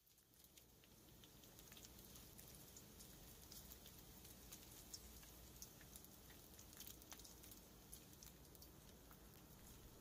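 Faint crackling hiss: a low, even noise that fades in over the first second or two, dotted with many small, irregular ticks and crackles.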